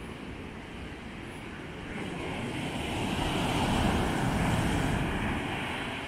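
Ocean surf breaking on a sandy beach: a wave's rush swells about two seconds in, peaks, then fades as it washes up the shore near the end.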